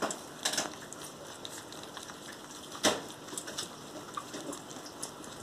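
A litter of puppies eating beef and carrots from one shared steel bowl: a steady run of wet smacking and chewing, with two sharper knocks, the louder one about three seconds in.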